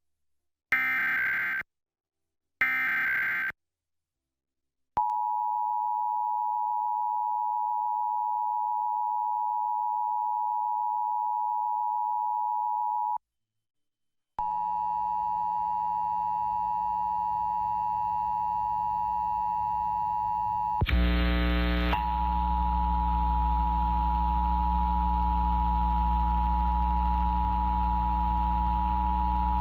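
Emergency Alert System broadcast tones: the last two of three one-second SAME data header bursts, then the two-tone EAS attention signal held steadily for about eight seconds before cutting off. After a short gap a steady tone starts again with a buzz underneath it, which gets louder about 21 seconds in.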